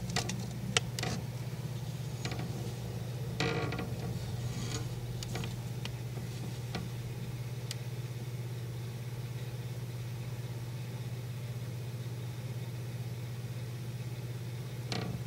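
A steady low hum, with scattered faint clicks and knocks, most of them in the first eight seconds.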